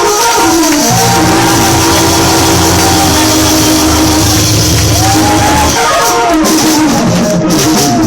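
Live church band music with held organ-like chords, drums and cymbals, and voices calling out or singing over it.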